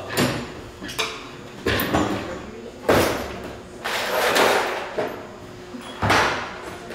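Rummaging through a drawer of tools: a series of sudden knocks and clatters about a second apart, a few with a short scraping slide.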